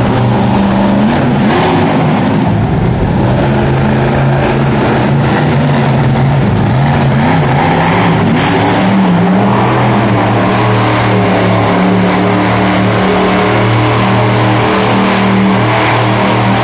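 Bone Shaker monster truck's engine running loud at high revs as the truck drives and turns. The note holds mostly steady, with brief dips in pitch about a second in and again around nine seconds in.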